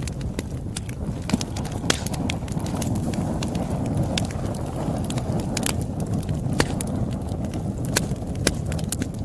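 Campfire burning: a steady low rumble of flames with sharp, irregular crackles and pops of burning wood, a few louder snaps standing out.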